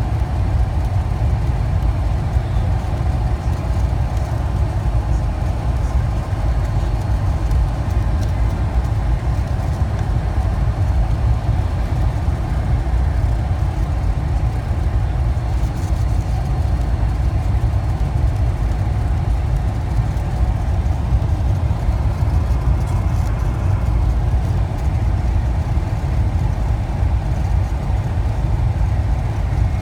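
Steady, low cabin rumble inside a McDonnell Douglas MD-88 airliner descending on approach to land, from its rear-mounted Pratt & Whitney JT8D turbofans and the air rushing past the fuselage.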